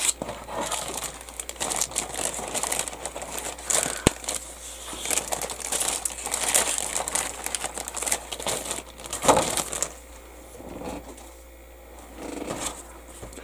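Clear plastic bag crinkling and rustling as a plastic model-kit sprue is slid out of it, busiest for the first ten seconds with a louder rustle a little after nine seconds, then dying down to lighter handling noise.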